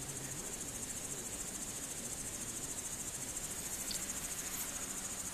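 Steady high-pitched chirring of insects, cricket-like, a fast, even pulsing that does not break.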